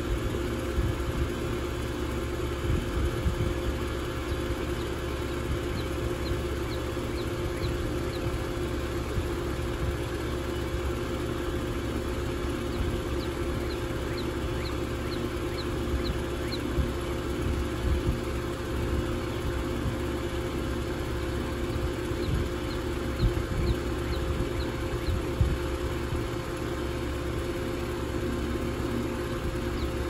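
2001 York 2-ton air conditioner running steadily: a constant hum with fan noise. Faint high chirps come in short runs several times.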